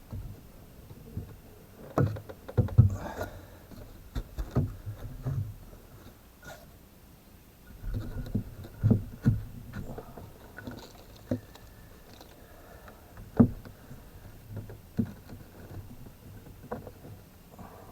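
Wooden boards knocking and thudding as 2x4 lumber is set and shifted into place under a 2x6 bed frame: irregular knocks in clusters, the sharpest single knock about two-thirds of the way through.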